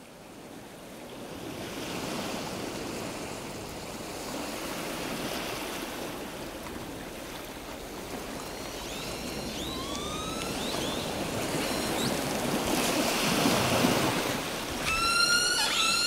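Sea surf washing onto the beach: a steady hiss that fades in over the first couple of seconds, then swells and eases. Seagulls call over it, with a few short cries about halfway through and a louder, clearer call near the end.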